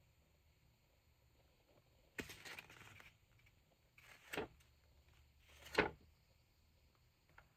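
Packaging of a keyboard being handled: a scraping rustle about two seconds in, then two short slides that each end in a knock, the second the loudest, and a faint click near the end.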